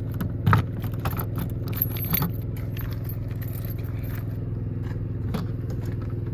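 RV's onboard Cummins Onan 5500 generator running with a steady hum, with a few clicks and rattles of handling: a sharp one about half a second in, then others around two and five seconds.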